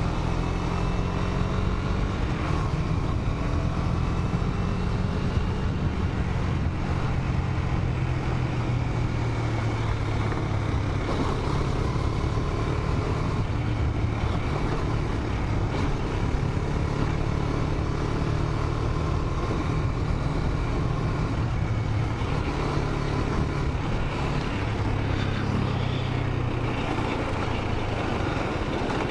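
2018 KTM 250 Duke's single-cylinder engine running as the motorcycle rides along at a fairly steady pace, its pitch shifting a little now and then over a steady rush of noise.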